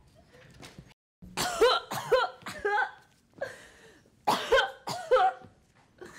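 A girl's voice making a run of short, high, squeaky nonsense calls in place of words, about six in quick succession. They are meep-like character noises.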